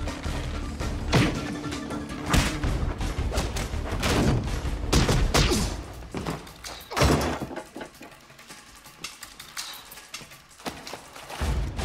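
Film fight sound effects: a rapid run of blows, thuds and scuffles over a film score. About seven seconds in the hits stop and only quieter music continues; loud sound returns near the end.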